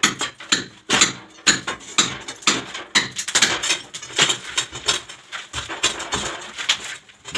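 Hammer blows chipping away water-damaged ceiling plaster, a run of sharp knocks about two a second that come faster and more irregularly after about three seconds.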